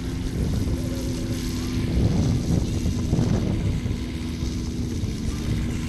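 Five-cylinder radial engine of a 1/3-scale model Stearman biplane running throttled back on landing approach: a steady engine note over a low rumble that swells a couple of seconds in.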